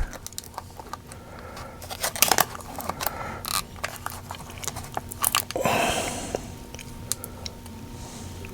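Small plastic and adhesive-backed screen parts being handled and pressed into place: scattered sharp clicks and crinkling, with a short rushing hiss about six seconds in.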